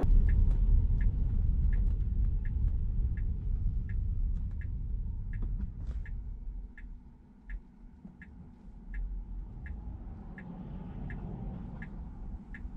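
Tesla turn-signal indicator ticking steadily in the cabin, about three ticks a second, signalling a left turn. A low rumble sits underneath, louder in the first half.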